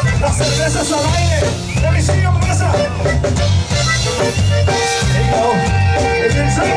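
A conjunto band playing: a pulsing bass line and drums under an accordion melody.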